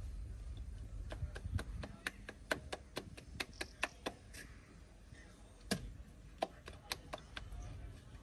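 A run of sharp, light taps or clicks, about four a second for three seconds, then a short pause and a few more.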